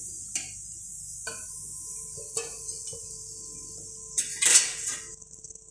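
Perforated steel ladle knocking and clinking against an aluminium kadai and a plate as fried vadais are lifted out of the oil, with a few light taps and a louder clatter about four and a half seconds in.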